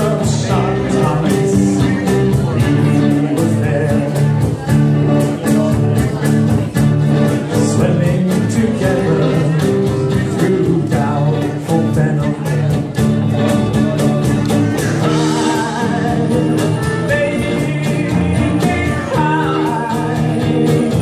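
Small live band playing a song: strummed acoustic guitar, clarinet and electric bass, with singing over a steady beat.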